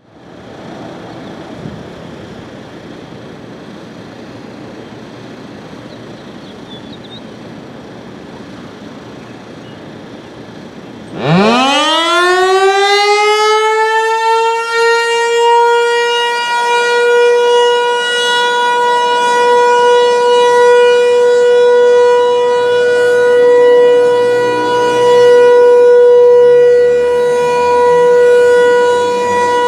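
Federal Signal 508 rotating outdoor warning siren winding up about eleven seconds in, its pitch rising quickly and then holding one steady tone for the Alert signal, its loudness swelling and fading slowly as the head rotates. Before it starts there is only steady background noise.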